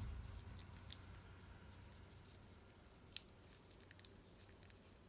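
Faint handling of a Fidget Cube being pushed into its silicone Fidget Prism case: three small sharp clicks, about one, three and four seconds in.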